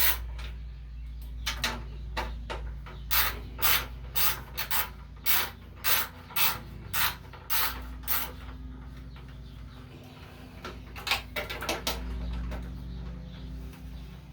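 Socket ratchet with a 1/4-inch socket clicking in quick, regular strokes, about two a second, as the bolts holding a mower's engine cover are loosened. It pauses, then gives another quick run of clicks about eleven seconds in.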